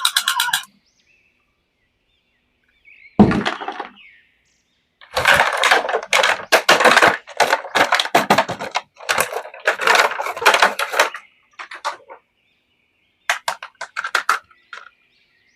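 Toy packaging and figures handled during an unboxing: one sharp knock, then a long stretch of crackling and clicking, with a few shorter crackles near the end.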